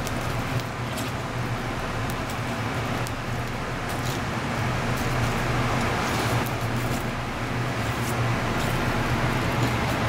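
Steady low mechanical hum with a broad hiss, the constant background drone of machinery, and a few faint light ticks of a knife working on a plastic cutting board.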